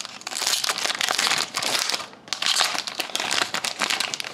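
Foil wrapper of an Upper Deck Artifacts hockey card pack crinkling as it is handled, in two long stretches with a short pause about two seconds in.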